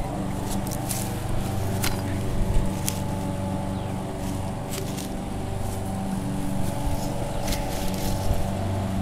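Steady low motor hum in the background, even in pitch throughout, like a small engine running. Scattered sharp clicks and scrapes of hand digging in soil.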